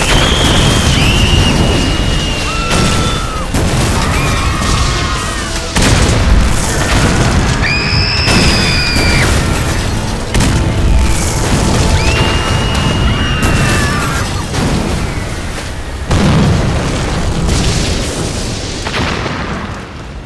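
Dense animated-battle sound effects: repeated booms and crashes over a loud rumbling wash, with several high, held, whistling screeches that bend in pitch. Music runs underneath.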